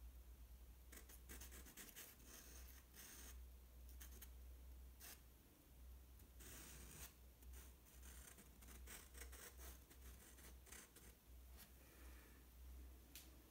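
Faint scratching of a pencil on sketchbook paper: quick hatching strokes in clusters, stopping about a second before the end.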